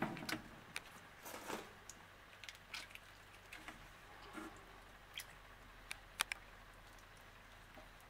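Young common snapping turtles moving about in a shallow plastic tank of water: faint, irregular clicks and small wet taps as their shells and claws knock on the tank and paddle the water, one sharper click about six seconds in, over a steady low hum.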